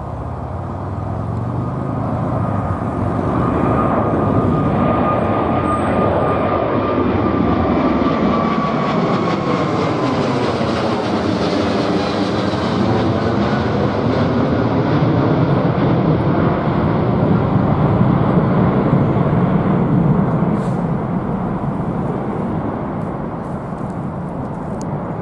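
Boeing 777-300ER's twin GE90-115B turbofans at climb power as the jet climbs out after takeoff and passes directly overhead: a loud, steady roar with a fan whine that slowly falls in pitch on the approach. The roar swells until the aircraft is overhead about twelve seconds in and fades a little near the end as it moves away.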